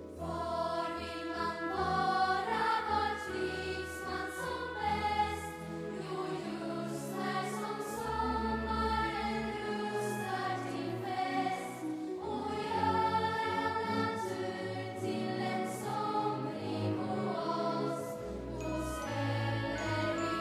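Children's choir singing a bright song together, accompanied by an orchestra.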